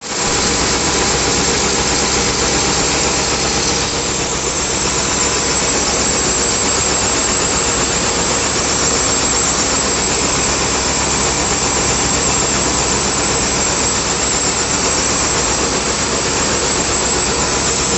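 Cigarette filter-making machine running at steady speed: a loud, even mechanical noise with a few faint steady tones running through it.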